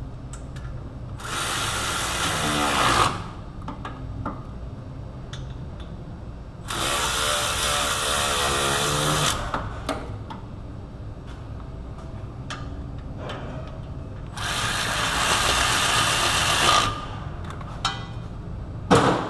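Cordless power tool run three times, each burst about two to three seconds long, tightening down the three hub-assembly bolts. Small clicks come between the runs, and there is a sharp click near the end.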